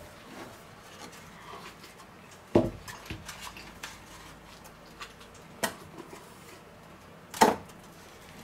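Kitchen worktop handling sounds: a few sharp knocks and clicks of containers and utensils, one about two and a half seconds in, a smaller one past halfway and the loudest near the end, with faint rustling and ticks between.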